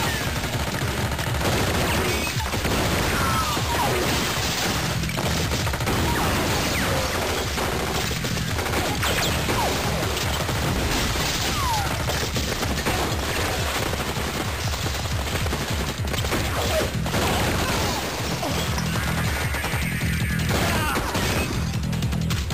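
Film shootout soundtrack: continuous rapid gunfire from several guns, with impacts, over driving action music with a steady beat.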